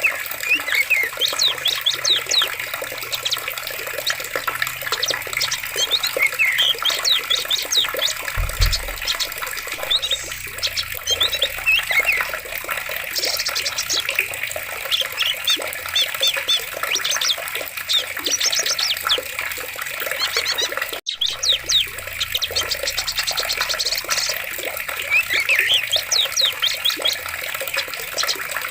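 Running water in a forest, with many small birds chirping and twittering over it in quick, overlapping calls. The sound cuts out for an instant about two-thirds of the way through.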